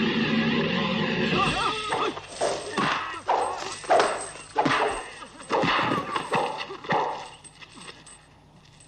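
Film music stops about a second and a half in. Then comes a brawl: men yelling fighting cries, with a run of sudden strike impacts between them, fading down near the end.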